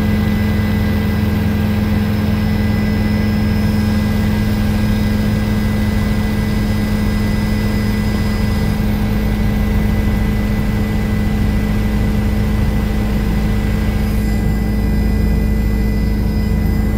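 Helicopter in flight heard from inside the cabin: engine and rotor running steadily, a constant loud drone with steady high whining tones over it.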